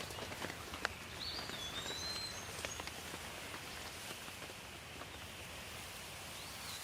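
Steady rain falling, with individual drops ticking sharply on a surface. A bird gives short whistled calls about a second in and again near the end.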